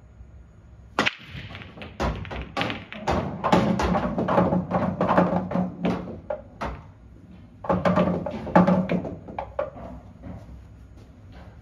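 Break shot on a pub pool table with red and yellow (blackball) balls: a sharp knock about a second in as the cue ball smashes into the rack, followed by a long run of clicking ball-on-ball collisions and cushion knocks. Potted balls rumble down the table's ball-return channel, and the clicks die away before the end.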